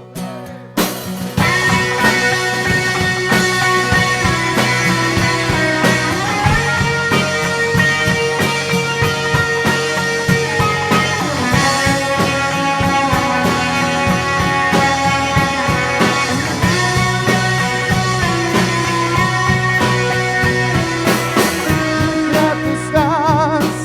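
A rock band playing an instrumental passage with guitars and drums and no singing. It comes in fully about a second in and drops back near the end.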